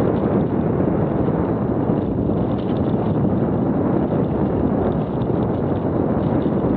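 Mountain bike rolling down a dirt singletrack: a steady rumble of tyres on the trail mixed with wind buffeting the camera's microphone, with small rattles from the bike over the rough ground.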